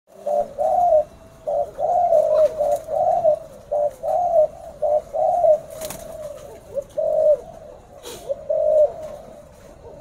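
Spotted doves cooing: short rounded coo notes repeated in phrase after phrase.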